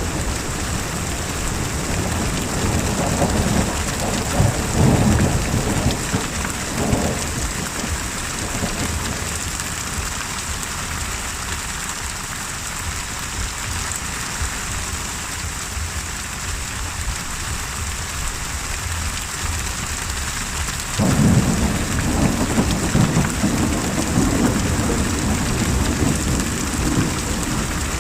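Thunderstorm: steady heavy rain with rolling thunder. The rumbling dies down after the first few seconds and comes back suddenly about two-thirds of the way through.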